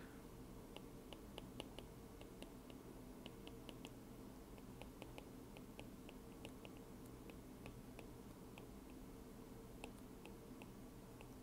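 Faint, irregular ticks of a stylus tip tapping and stroking on an iPad's glass screen as words are handwritten, over a faint steady background hum.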